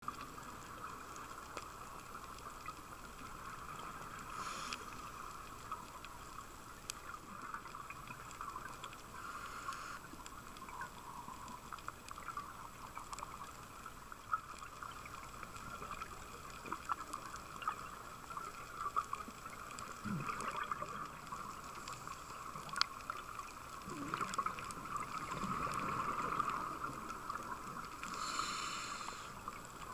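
Underwater reef ambience heard through a camera housing: a steady wash of noise with many scattered sharp crackling clicks, and a few short rushing bursts, one near the start and one near the end.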